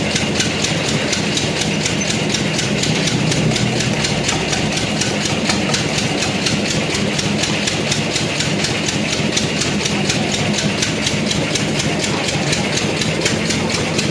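A machine running steadily with a low hum and a fast, even clicking, typical of an air compressor or pneumatic tool in a tyre-repair shop.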